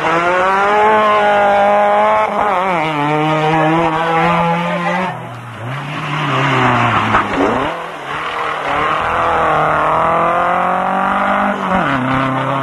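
Rally car engines at full throttle passing on a stage. One car accelerates hard with its revs dropping at each gear change, then a second car comes through about halfway in, its engine note sweeping down as it passes and then climbing again through the gears.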